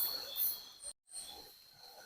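Night insects calling: a steady high-pitched whine with short, very high chirps repeating about every half second. The sound cuts out completely for a moment about a second in.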